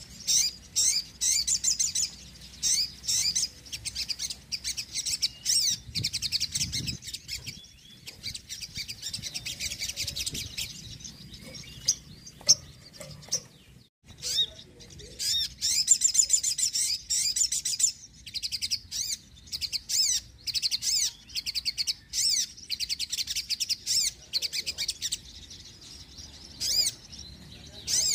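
Sogon, a small Indonesian sunbird, singing without pause: rapid high-pitched chirping phrases in quick bursts, running into longer unbroken trills about a third of the way in and again past the middle.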